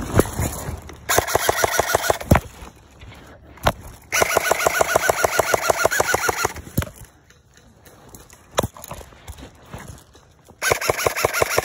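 Airsoft gun firing three full-auto bursts, each a rapid, even rattle of shots over a whine: a short burst a second in, the longest of close to three seconds around the middle, and another short one near the end.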